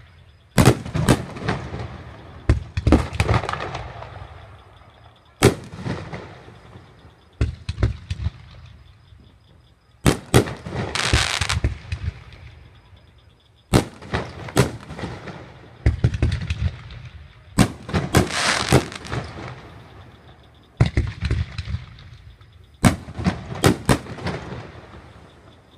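Fireworks going off: repeated sharp bangs in clusters every few seconds, some followed by a hissing crackle that lasts a second or two.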